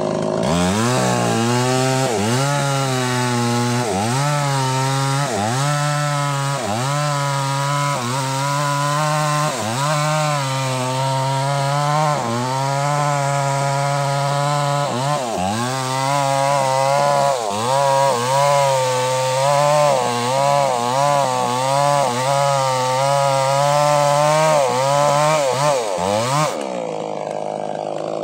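Two-stroke chainsaw at high revs, cross-cutting a mahogany log. The engine note sags and recovers every second or so as the chain bites into the wood, and it stops abruptly near the end.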